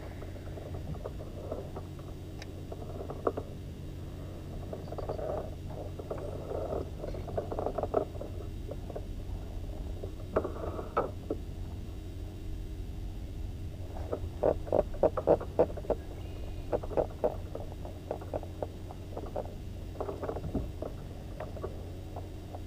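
Handling noises from a rod and baitcasting reel in a fishing kayak: clusters of soft clicks and rubs, busiest in the second half, over a steady low rumble.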